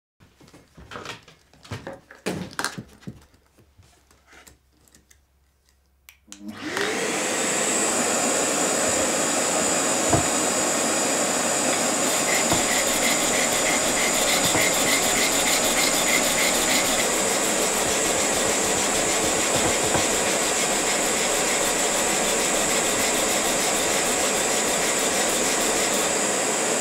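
A few light knocks and clicks, then about six seconds in a vacuum cleaner switches on, rising in pitch as it spins up. It then runs steadily, drawing air down through a perforated dust-collection sanding table. Faint rhythmic hand-sanding strokes of wood on sandpaper sound over it.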